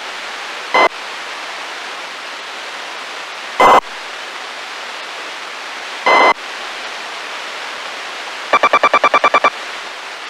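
Icom IC-R2 radio scanner in AM mode tuned to 433.92 MHz: steady loud static hiss, broken by short buzzing data bursts from the weather station's transmitter, about a second in, near four seconds and near six seconds, then a rapid train of about ten pulses near the end.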